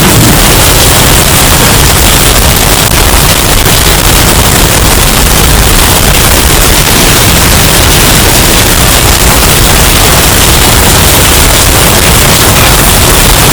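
Hurricane storm sound effect, bass-boosted and heavily distorted: a loud, steady wall of clipped noise with a heavy low end.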